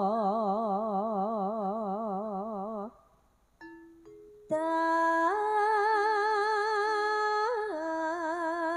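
A female singer singing a slow Javanese sung verse in long held notes with a wide, even vibrato, over a steady sustained accompanying note and no drums. She breaks off for a breath about three seconds in, then comes back on a higher held note.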